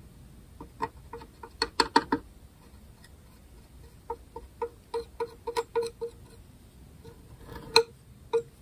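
Quick, light taps in irregular clusters, with two single louder taps near the end, as sawdust is tapped out of a small plastic bag onto a glued crack in a bowl-back mandolin's top.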